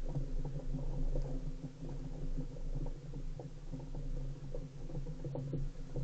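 A flock of rock pigeons cooing together, a continuous low, pulsing coo with overlapping voices.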